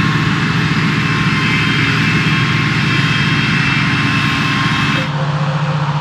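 Oxbo 9630 self-propelled sweet corn harvester running at work: a steady diesel engine hum under a broad mechanical rush from the machine. About five seconds in, the rush cuts off suddenly and the low hum continues.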